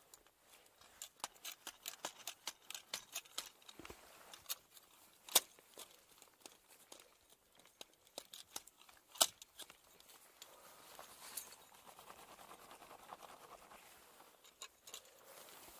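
Ice tool picks striking water ice on a lead climb. There are two loud, sharp strikes about four seconds apart and many lighter clicks and small knocks between them.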